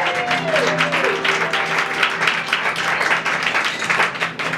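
Live audience applauding over the band's introduction to a show tune, which holds a sustained chord.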